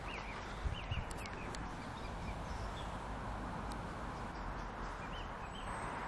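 Outdoor background ambience: a steady faint hiss with small birds chirping now and then, and a couple of soft knocks a little under a second in.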